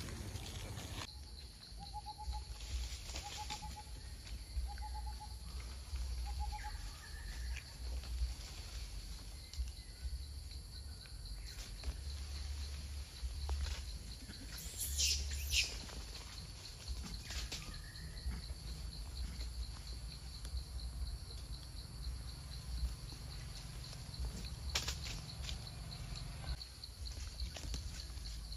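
Outdoor forest ambience with a bird calling a series of four short whistled notes in the first several seconds, over a steady high buzz and a low rumble. About halfway through there is a brief, sharp, hissing rustle.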